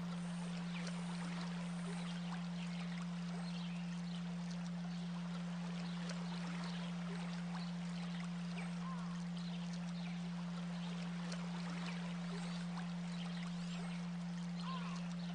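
A steady background bed: a constant low hum held on one pitch under an even rushing hiss like running water, with faint short chirps scattered through it.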